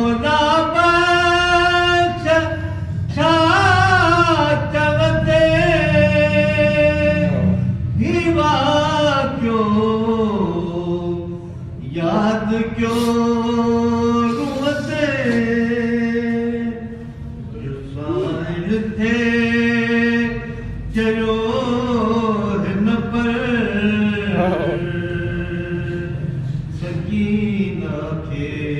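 Male voice singing a Sindhi salam, a devotional lament for Sakina, in long held, ornamented phrases with short breaks between them.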